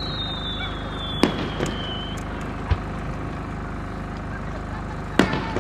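Fireworks display: a whistling shell's whistle falls slowly in pitch over the first two seconds, with sharp bangs from shell bursts about a second in, near three seconds, and a pair near the end.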